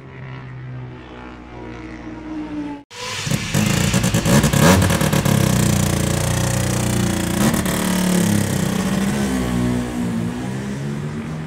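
Four-cylinder two-stroke racing motorcycle engine with four expansion-chamber exhausts idling. After a sudden cut about three seconds in, it is revved hard with sharp throttle blips, then falls back to idle near the end.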